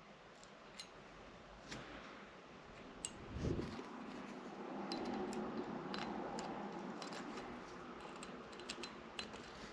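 Faint clicks and clinks of small screws and tools being handled on a bench, with a soft thump about three and a half seconds in and a few seconds of faint handling noise after it.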